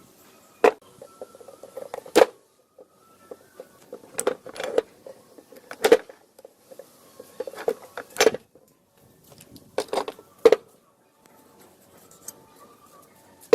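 Metal parts clicking and knocking against each other and a hard surface, in irregular sharp taps about one or two a second.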